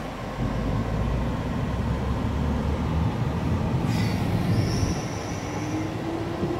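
Road and engine rumble heard inside a moving car's cabin, swelling as the car passes under an overpass. A brief high-pitched squeal joins it about four seconds in as the car slows into traffic.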